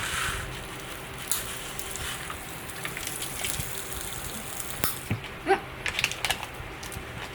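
Light, irregular crackling and clicking from a packet of green apple Pop Rocks being handled and the popping candy going into the mouth, with a few louder clicks in the second half.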